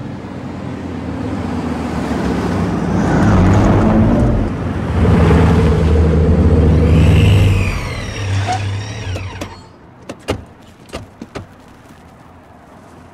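Several tuned sports cars drive up the street and pull into a driveway, their engines getting louder and then dying away, with brief high squeals near the end of the run. After the engines stop come a few sharp clunks like car doors shutting.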